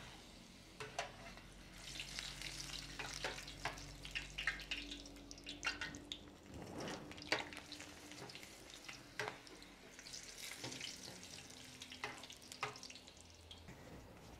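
Dried black chiles (chiles negros) sizzling faintly as they toast in a little hot oil in an enamel pan. Scattered small clicks and scrapes come from an enamel spoon turning them against the pan.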